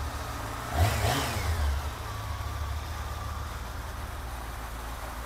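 Honda sportbike engine idling with one quick throttle blip about a second in, the revs rising and dropping back to a steady idle. The buyer judges the engine to be running normally.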